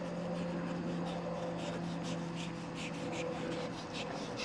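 A small child's quick running footsteps brushing through lawn grass, about three or four a second and getting louder as he comes closer, over a faint steady hum.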